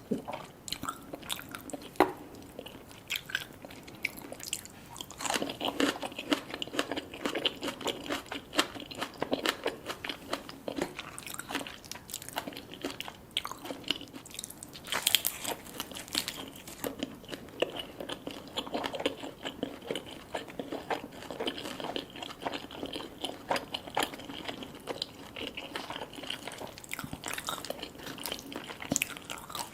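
Close-miked eating sounds: chewing and biting of food with many short, irregular crunches.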